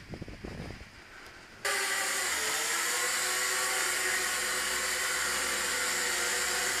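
Low rumbling and knocks. About one and a half seconds in, a JJRC H37 Elfie pocket quadcopter's motors and propellers start suddenly with a steady high whine of several tones as it hovers.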